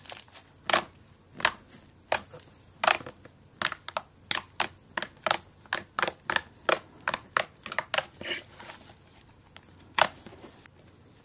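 Orange slime being squeezed, pressed and poked by fingers, giving a run of sharp clicks and pops, roughly two a second and unevenly spaced.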